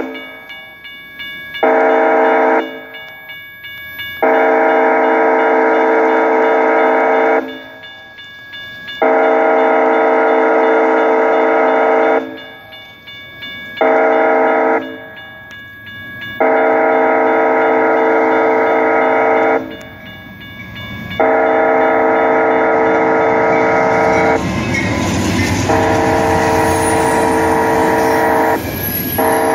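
Freight locomotive's multi-chime air horn sounding the grade-crossing signal: long, long, short, long, with the pattern repeating. The horn stops about 24 seconds in, and the rumble and clatter of the passing train's wheels on the rails takes over.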